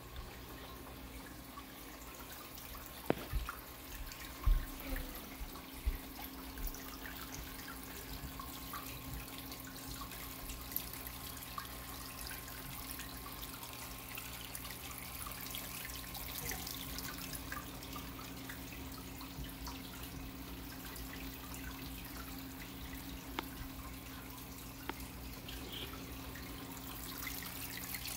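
Water trickling and dripping in a planted aquarium and paludarium setup, with scattered small drips over a steady low hum. A few louder knocks come about three to six seconds in.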